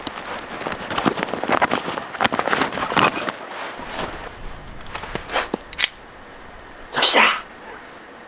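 A run of small clicks and rustles, like things being handled, then one short, loud hissing burst about seven seconds in.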